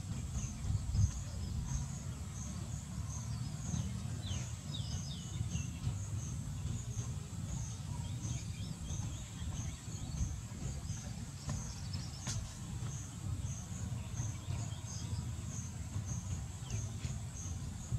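Outdoor ambience: an insect, such as a cricket, chirping in a steady high pulse about twice a second over a steady low rumble. A few brief bird chirps come about four seconds in.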